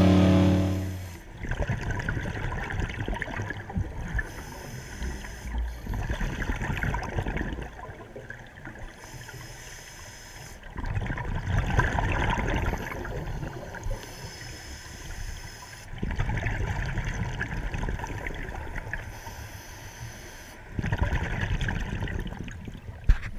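Background music fades out in the first second. Then comes underwater camera audio of a scuba diver breathing through a regulator: bursts of exhaust bubbles gurgling every few seconds, each lasting about two to three seconds, with quieter gaps between.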